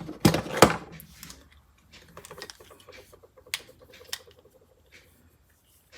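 Hand tools being handled and set down: two loud knocks in the first second, then lighter scattered clicks and rattles.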